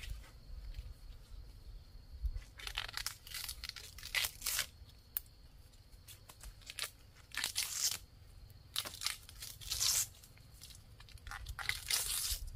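Leaves being torn and stripped by hand from a long, thin green stalk: a run of short, irregular tearing rustles with pauses between.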